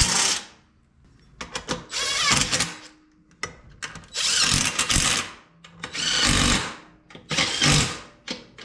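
DeWalt cordless drill run in about five short bursts of a second or so each, backing a fastener out of a mini bike to take a part off.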